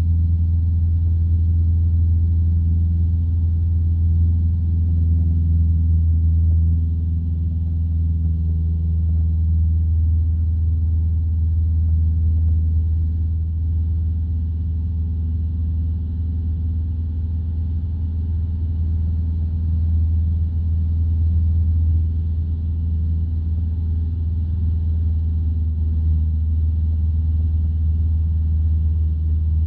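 Single-engine light aircraft's piston engine and propeller droning steadily in flight, heard from inside the cockpit, easing slightly about a quarter of the way in.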